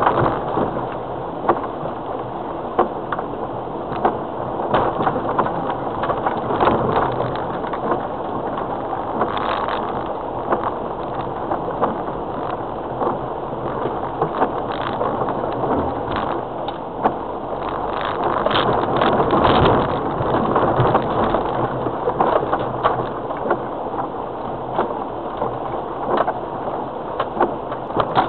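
Cabin noise of a Land Rover Freelander TD4, its 2.0-litre turbodiesel running under steady drive and tyre noise, with frequent short knocks and rattles from the body and suspension over the rough, rutted track.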